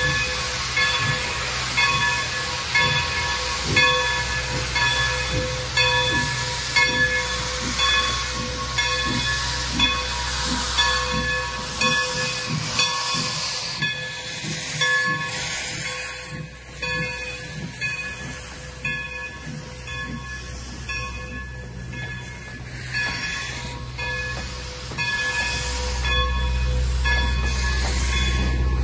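Steam locomotive moving slowly, hissing steam from its open cylinder cocks while its bell rings steadily about once a second. The hiss thins out about halfway through.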